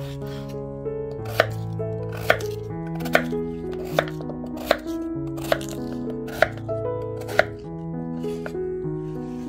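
Kitchen knife cutting through raw peeled potatoes and knocking on a wooden cutting board: sharp knocks about once a second. Background music with sustained chords plays underneath.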